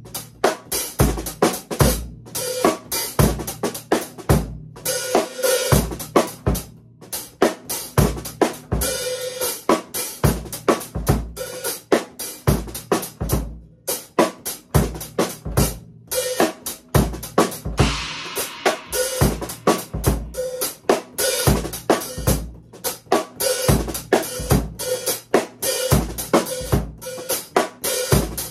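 Drum kit played solo in a fast, driving groove: snare and bass drum hits under hi-hat and cymbal, with a few short stops in the beat and a stretch of ringing cymbals about two thirds of the way through.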